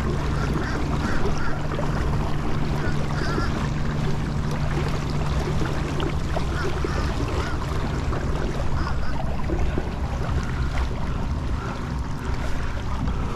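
Water sloshing around a pedal-driven fishing kayak as it moves, with wind on the microphone and a steady low hum underneath.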